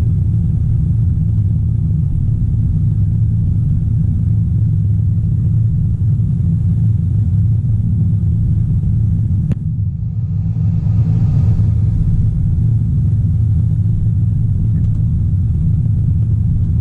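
Caterpillar 973C track loader's diesel engine running steadily under load, heard from inside the cab. A sharp click comes about nine and a half seconds in, followed by a short swell in engine noise.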